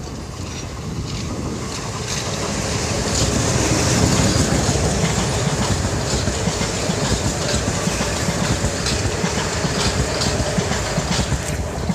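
Metro-North M7A electric multiple unit passing close by: the rumble of steel wheels on rail builds to its loudest about four seconds in and holds, with a string of wheel clicks as the cars go by.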